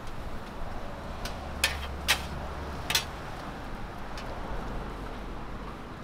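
Two metal bench scrapers scraping and clanking on a flat steel griddle as stir-fried noodles are tossed. The sharpest clanks come about a second and a half and two seconds in, with another near three seconds, over a steady low background hum.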